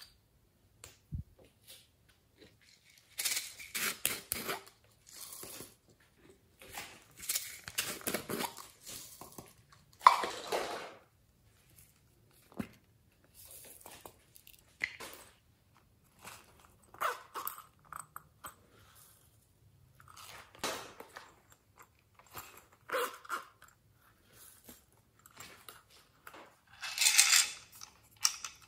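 Glitter and sequins shaken and spooned from small plastic containers onto slime in a glass tray: a string of short, crackly rustling bursts with gaps between them, and plastic clicks as the containers are handled.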